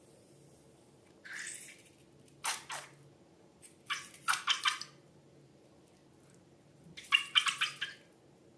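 Slime being squished and pulled by hand: four short bursts of sticky clicking and squelching, the last two the loudest.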